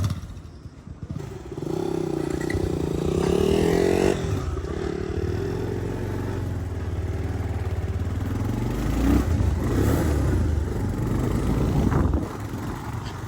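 Motorcycle engine running while riding, picking up and rising in pitch about two seconds in, then holding a fairly steady note.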